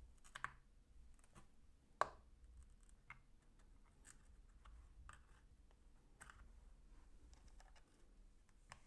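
Faint clicking and scraping of thin metal prying tools worked into the seam of a Seagate One Touch external hard drive's case to pry it open, with two sharper clicks about half a second and two seconds in.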